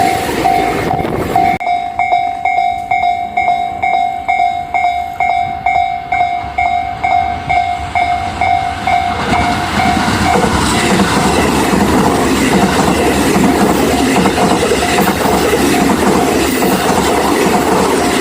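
Japanese railway level crossing's warning bell ringing, a pulsing tone about three times a second. A train runs past at the very start and again from about nine seconds in, its noise partly covering the bell.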